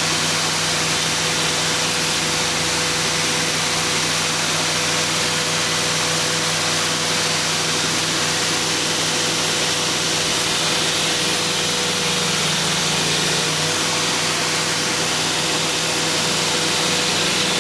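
2x72 belt grinder running with a 120-grit belt: a steady hiss of the moving belt with a constant whine and motor hum. A steel knife blank is pressed flat against the belt on the platen and ground lengthwise.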